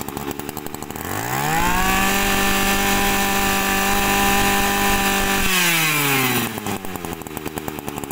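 Small two-stroke brush cutter engine idling, then revved about a second in and held at high speed for about four seconds before dropping back to idle.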